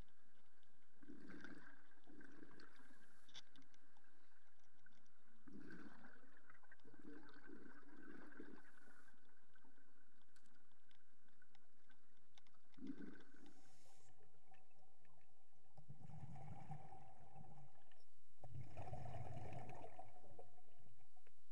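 Muffled underwater ambience heard through a submerged camera: low water gurgling with soft irregular swells and a faint steady whine that shifts lower about two-thirds of the way through, getting a little louder near the end.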